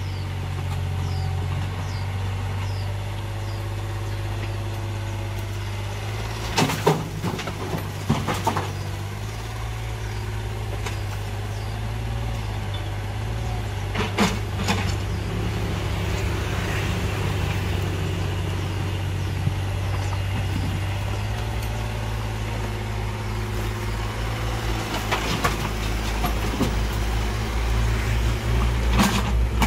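Yanmar ViO mini excavator's diesel engine running steadily under hydraulic load while it digs, with scattered knocks and clatters of the steel bucket striking rock and dumping soil into a dump truck bed, several of them a few seconds apart.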